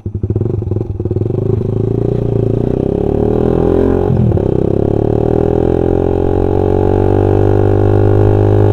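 Suzuki Satria FU's 150 cc single-cylinder four-stroke engine running through a Pro Liner aftermarket exhaust while riding, its note described as round and full. The exhaust is uneven in the first second, dips briefly in pitch about four seconds in, then builds steadily louder.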